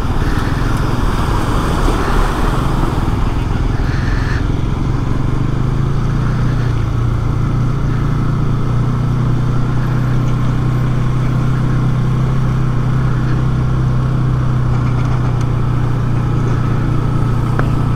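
Bajaj Pulsar NS200's single-cylinder engine running under way, with wind and tyre noise on a rough, wet road. The engine note settles to a steady drone about halfway through.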